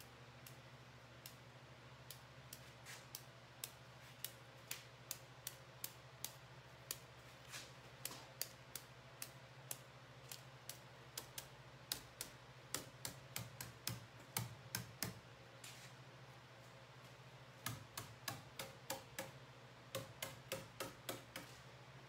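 Light, sharp taps of a paint brush being struck to spatter drops of purple paint onto a water-marbling bath, some single and some in quick runs of several taps, over a faint steady low hum.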